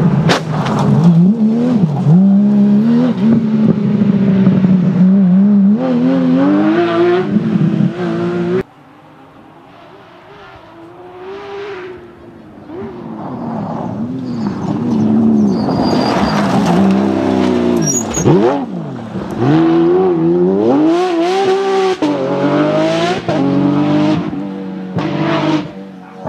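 Porsche 911 GT3 rally car's flat-six engine revving hard, pitch climbing and dropping through gear changes. About nine seconds in the sound drops suddenly to a quieter, more distant engine that rises and falls with repeated revs. It grows loud again and keeps revving through shifts.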